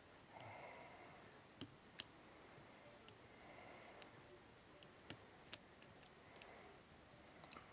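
Faint, scattered sharp clicks of a lock pick working the pins inside an Abus Rock 83/80 padlock's keyway under tension, about ten in all, the loudest a little past halfway.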